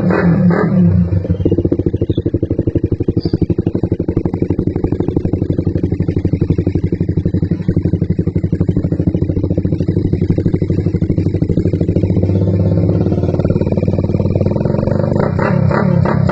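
Suzuki Raider 150's single-cylinder four-stroke engine idling with a fast, even exhaust pulse. It is revved briefly at the start and again near the end.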